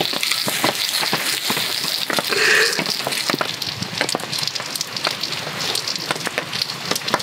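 Heavy rain pattering on a tarp, a steady hiss full of irregular drop ticks, with one brief louder sound about two and a half seconds in.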